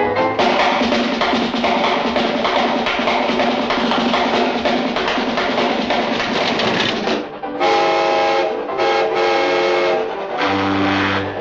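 Cartoon train sound effects over music: a dense, rhythmic chugging for about seven seconds, then a steady whistle-like chord sounding three times.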